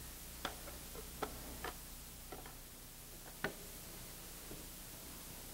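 A handful of light, scattered clicks and knocks, about five in the first three and a half seconds, as pieces of wood are handled and fitted against each other.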